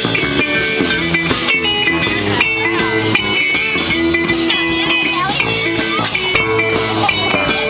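Live band playing rock music: electric guitars over a drum kit, through PA speakers, loud and unbroken.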